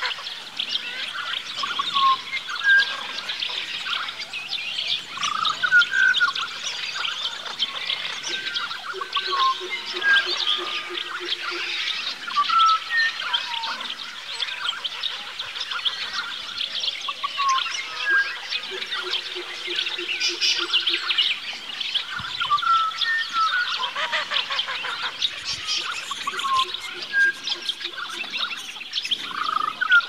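A dense chorus of many birds calling: constant high chattering with repeated short whistled notes over it. A lower, rapidly pulsing call runs for a few seconds about nine seconds in and again about nineteen seconds in.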